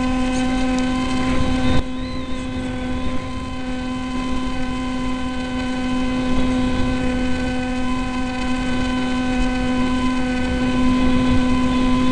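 Multiplex EasyStar model plane's RAY 2835/16 brushless electric motor and pusher propeller running at steady throttle, heard on board: a buzzing whine holding one pitch, over a low rush of air.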